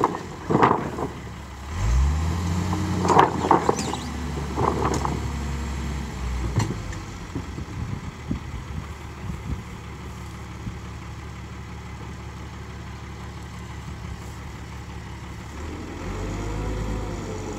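Diesel engine of a crane truck running, its revs rising about two seconds in and again near the end as the loader crane is worked, with a few knocks in the first several seconds.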